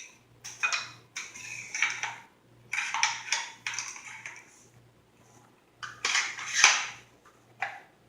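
Kel-Tec RDB rifle parts being handled and fitted together during reassembly: a run of hard clacks, scrapes and clicks in several bunches, the sharpest click about six and a half seconds in.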